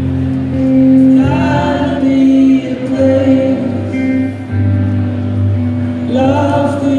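Live rock band playing a slow song: electric guitar and keyboard over held low notes, with sung vocal lines rising in and out every couple of seconds.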